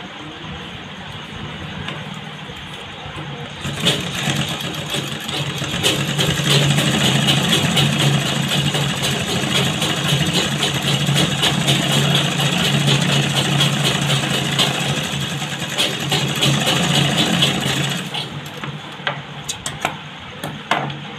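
Electric sewing machine stitching at speed: it starts about four seconds in, runs steadily with a fast needle rhythm and stops about eighteen seconds in. A few sharp clicks follow near the end.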